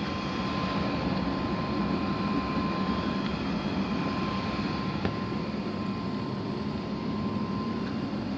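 Steady hum and rush of air with a faint constant tone, typical of an HVAC air handler's blower running.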